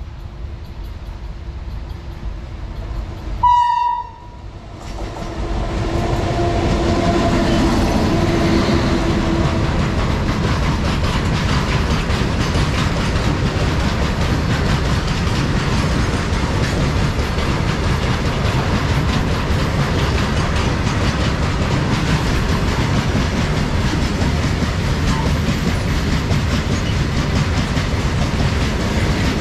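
Heavily loaded freight train of open wagons rolling past close by, a loud steady noise of wheels on the rails. A short horn blast sounds about three and a half seconds in, before the wagon noise builds up.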